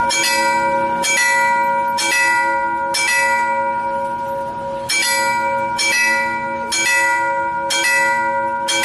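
Railway level-crossing warning bell ringing, struck about once a second with a longer pause near the middle, each strike ringing on.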